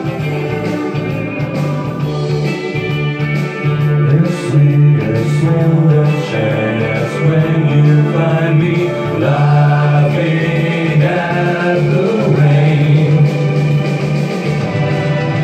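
Karaoke backing track playing an instrumental stretch of a pop song over a steady bass line, with a man singing along into a microphone in places.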